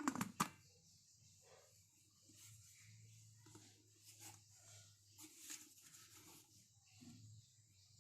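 Two sharp clicks in quick succession right at the start, then faint room noise with a low steady hum and small scattered sounds.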